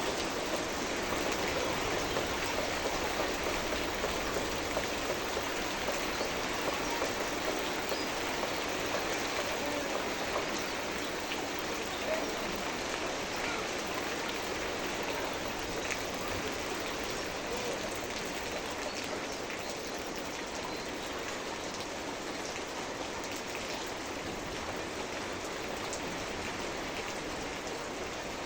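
Steady rain falling, with scattered distinct drops ticking through the hiss.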